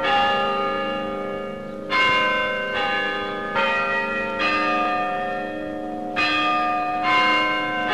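Tower bells struck one at a time at different pitches, about seven strikes, each note ringing on into the next like a slow peal.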